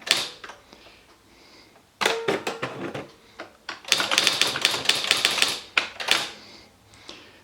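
Esselte 80 electric typewriter printing: a single strike, a few strikes about two seconds in, then a fast run of rapid character strikes between about four and six seconds.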